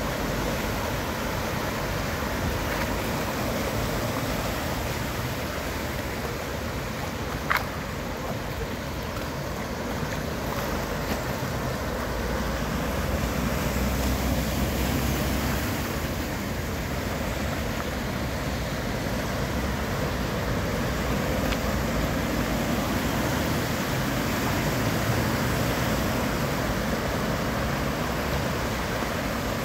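Floodwater covering a street, with cars driving through it and throwing up spray: a steady wash of water noise, with a car's rumble and splash swelling in the middle. A single sharp click about seven and a half seconds in.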